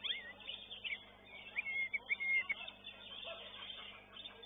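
Oriental magpie-robins (kacer) singing: short whistled notes and chattering, with a run of clear, level whistles in the middle.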